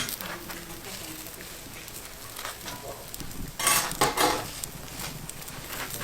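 Food frying on a hot pan or griddle with a steady sizzle, while metal utensils scrape and clatter against it; the loudest clatter comes about two-thirds of the way through.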